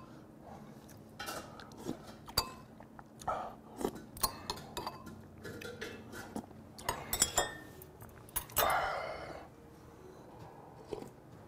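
Spoon and chopsticks clinking against ceramic side dishes and an earthenware pot as a man eats, with scattered sharp clicks and a quick run of them about seven seconds in. About nine seconds in comes a longer slurp as he drinks from a bowl.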